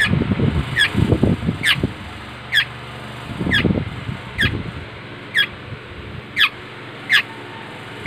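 Black-naped oriole fledgling calling: a short, high, downward-sweeping call repeated about once a second, some nine times. Low muffled noise lies under the calls in the first second and again around three and a half seconds in.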